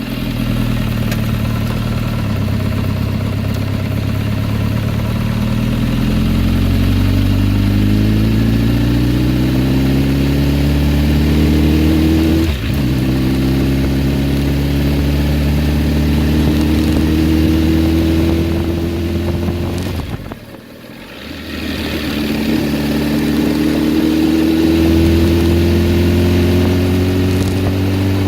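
2007 Kawasaki Ninja ZX-10R inline-four engine running, its pitch climbing slowly and steadily. There is a brief sharp break about twelve seconds in, and a short drop in level about twenty seconds in, after which the pitch climbs again.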